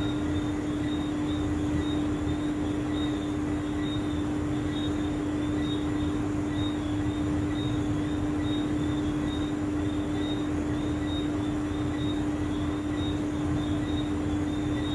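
A steady, unchanging hum with one strong low tone and a faint wavering high whine above it.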